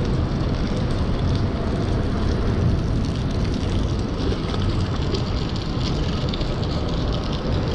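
Steady rushing, rumbling noise with light crackling throughout.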